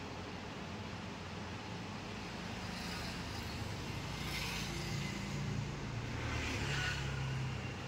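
Steady low background rumble, with a deeper hum that swells from about five to seven seconds in.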